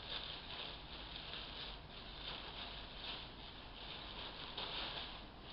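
Soft, irregular rustling of clothing being handled, swelling and fading in patches.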